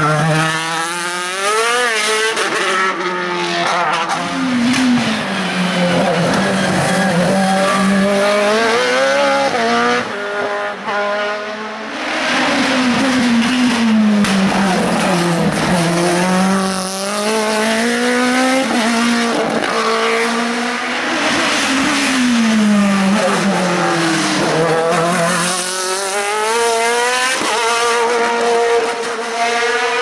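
Hill-climb racing cars, a single-seater formula car and then a sports prototype, driven flat out with their engines at high revs. The pitch climbs and drops again and again through the gears.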